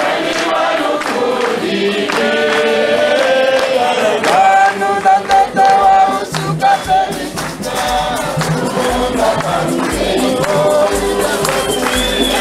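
Choir singing a Kikongo hymn over a steady percussion beat; a low bass part comes in about five seconds in.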